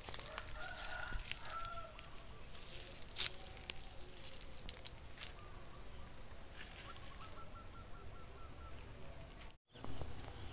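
Faint bird calls over light outdoor background noise: a few drawn-out notes near the start, then a quick run of short repeated notes later on, with a few soft clicks. The sound drops out for a moment near the end.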